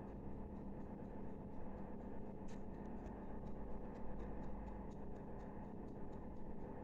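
Faint, even ticking, about three ticks a second, over a steady low room hum.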